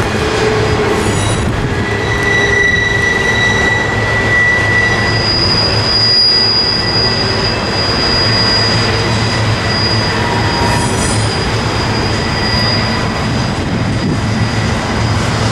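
Double-stack container freight train rolling past, a steady rumble of wheels on rail with high-pitched wheel squeal coming and going as the cars take the curve.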